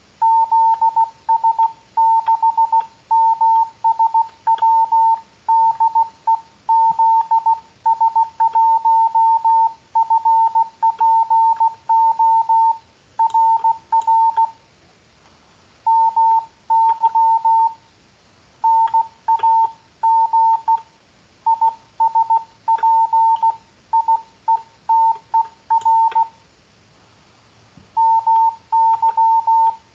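Morse code (CW) sent as one steady beeping tone keyed on and off in dots and dashes, with short gaps between letters and longer pauses between words.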